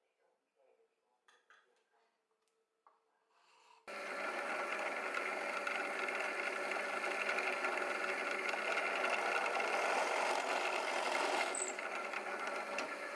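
A few light handling clicks, then about four seconds in an electric drill starts and runs steadily, boring a hole through the wooden lid of a puzzle box.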